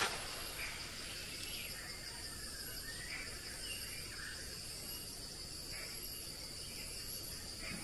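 Steady high-pitched insect chorus, with a few faint chirps in the first half.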